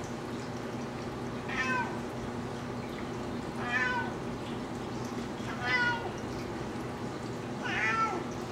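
Four short mewing animal calls, about two seconds apart, over a steady low hum.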